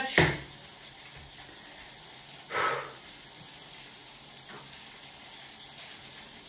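Vegetables sizzling steadily in hot oil in a wok. A sharp knock comes just after the start and a brief louder noise about two and a half seconds in.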